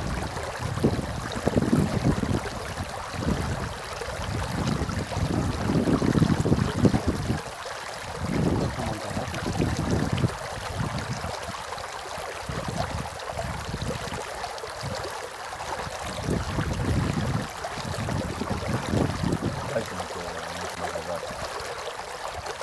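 A small river running: a steady rush of water, with wind gusting on the microphone off and on as low rumbles.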